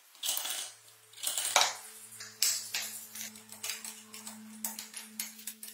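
Metal hand tools clinking and tapping against plywood and dowels in a run of sharp, irregular clicks and knocks, over a faint steady low hum.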